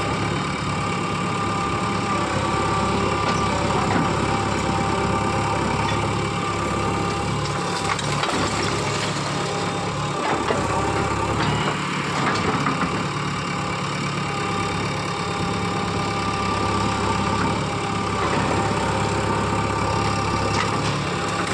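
Heavy machine's engine running steadily throughout, with a few faint clicks.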